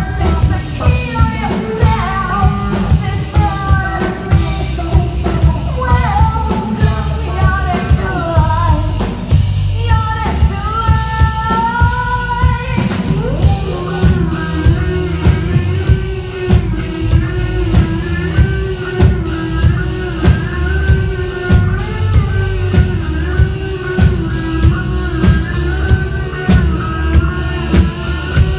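A rock band playing live, with singing over a drum kit that beats about twice a second. About halfway through, the wavering melody gives way to a long held note over the beat.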